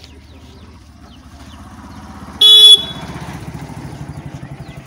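An auto-rickshaw's small engine puttering as it approaches and passes, with one short, loud horn honk about halfway through.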